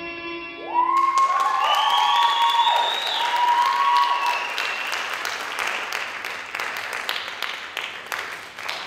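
Audience applauding, with loud whoops and cheers over the clapping in the first few seconds; the music's last note dies away about a second in.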